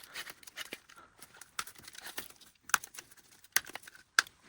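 Old rubber tire being pried and peeled off a Roomba i7 drive wheel: irregular scraping and crackling with a few sharp clicks as it comes away from the hub.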